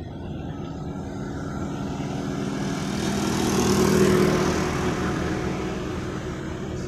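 A motor vehicle passing by, its engine noise swelling to a peak about four seconds in, then fading away.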